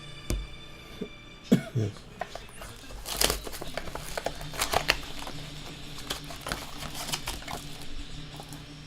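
Scattered clicks and light rustling from handling trading cards and their packaging, thickest around three to five seconds in, over a faint steady hum.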